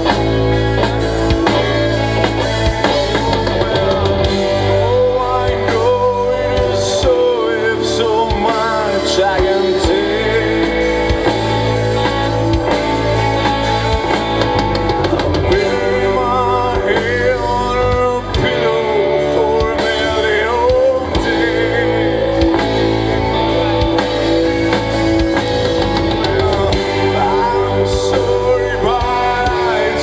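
A live rock band playing loudly and without a break: electric guitars, bass and drum kit, with a wavering lead melody over them.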